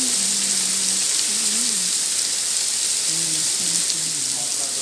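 Artificial rain from the Rain Room installation falling in a steady hiss, with faint voices talking under it.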